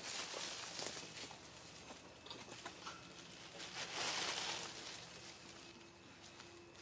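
Outdoor ambience of scattered soft rustles and small clicks, with a louder rustling noise about four seconds in, over a faint steady high-pitched whine.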